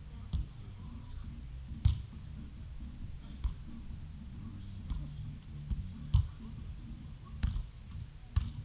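Scattered dull thumps of a footvolley ball being kicked and headed on sand, about eight in all, the sharpest about two seconds in, over a steady low hum.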